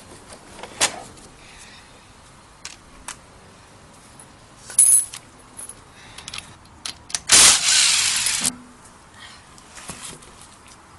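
Scattered metallic clinks and knocks of tools and hardware, then a loud burst of a power tool lasting about a second, some seven seconds in, used on the wheel's lug nuts.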